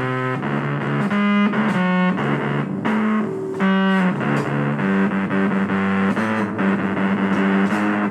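Music with distorted electric guitar playing a run of sustained notes.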